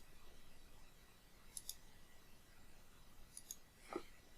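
Faint computer mouse clicks in near silence: three quick double clicks, about a second and a half apart.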